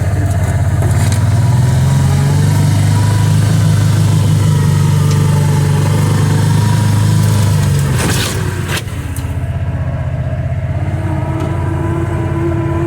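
Kawasaki Teryx 800 side-by-side's V-twin engine running steadily while driving on a dirt trail. About eight seconds in come two sharp knocks, after which the engine settles to a lower, quieter run.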